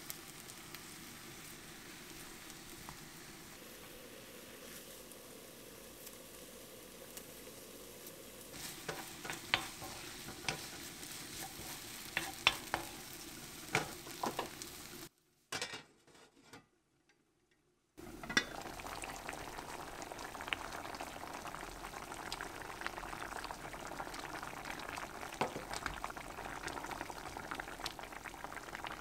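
Seasoned pork neck sizzling as it pan-fries, with a run of sharp clicks midway as the meat is cut and handled in the pan. After a short break, a pot of seaweed soup bubbles while a wooden spoon stirs it.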